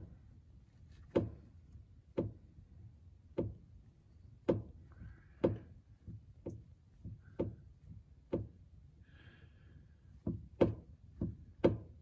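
Worn driveshaft universal joint on a 2002 Chevy Silverado 1500 clicking, sharp knocks about once a second that come a little closer together near the end; the clicking is the sign of a bad U-joint.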